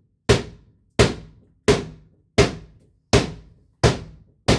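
Hammer blows struck at a steady pace, about seven heavy strikes two-thirds of a second apart, each with a short ringing decay. They are pounding at a nailed-in section of old HVAC return ductwork that won't come loose.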